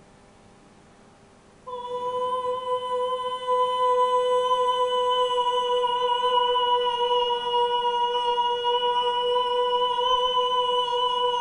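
A woman singing one long, steady held note. It starts about two seconds in, swells louder a couple of seconds later, and is still held at the end.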